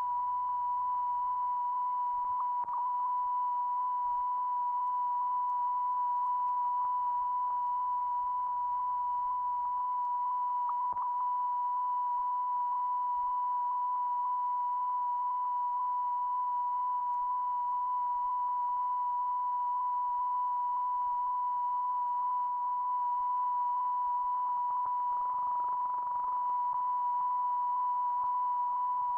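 A steady electronic test tone at one unchanging pitch, held without a break, with faint higher overtones: the reference tone left on the soundtrack of the silent archival film transfer.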